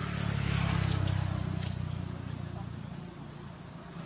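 A motor vehicle passing on a nearby road: a low engine hum that swells to its loudest about a second in and then fades away.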